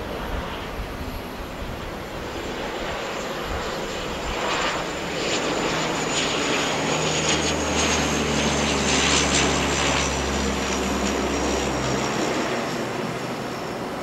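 Bombardier DHC-8-300 (Dash 8) twin turboprops passing on a low pass: a low propeller drone and a high turbine whine swell to their loudest in the middle, the whine falling slowly in pitch as the aircraft goes by. The drone drops away near the end as the plane climbs off.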